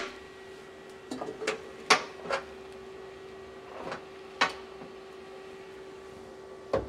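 A handful of short clicks and knocks from hands handling the cover and parts while opening up the head of a Tormach CNC mill, the sharpest about two seconds in and near the end. A steady hum runs underneath.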